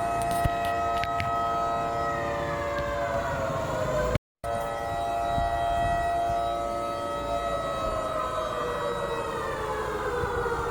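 Civil-defence siren wailing with several tones at once, the pitch holding steady and then sliding down, twice, and starting to climb again near the end; there is a brief break in the sound a little past four seconds. It is sounding the 10 pm lockdown curfew.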